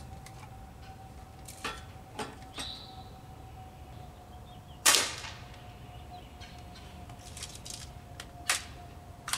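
A pneumatic pump air rifle, pumped six times, fires once with a sharp crack about five seconds in. A few lighter clicks come before and after it.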